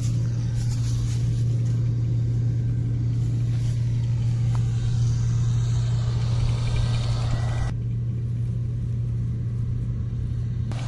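Engine of harvesting machinery running steadily with a constant low hum. The higher noise above it cuts out abruptly about eight seconds in.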